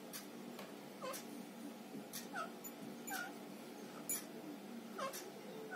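Faint, short high calls from a small animal, about one a second, heard over a low steady hum.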